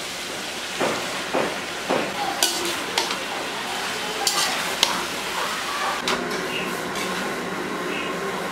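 Pumpkin cubes sizzling steadily in oil in a steel kadai, as a heap of Malabar spinach leaves goes in, with a metal spatula scraping and knocking against the pan every second or so.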